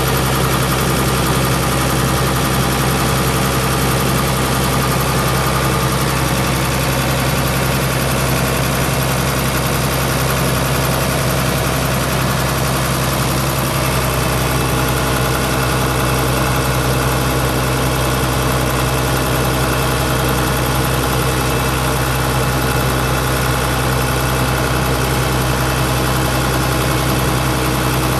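Isuzu six-cylinder turbo diesel of a 1985 GMC W7R042 refuse truck running steadily at idle, driving the PTO while the dual-ram hydraulic hoist raises and lowers the roll-off bed.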